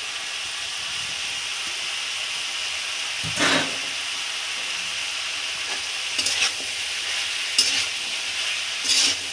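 Oil sizzling steadily in a metal kadai as shredded cabbage goes in over frying potatoes and eggplant. About three seconds in comes a louder rustling burst as the last of the cabbage is tipped in, then a metal spatula scrapes and clicks against the pan several times as the vegetables are stirred.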